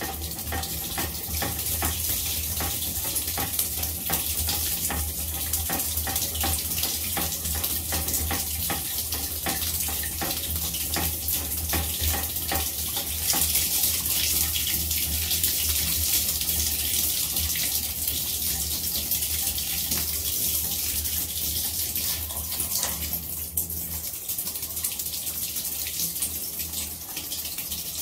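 Tap water pouring steadily onto a small 3D-printed water turbine, a continuous rush of water with a low hum beneath it; the hum drops away near the end.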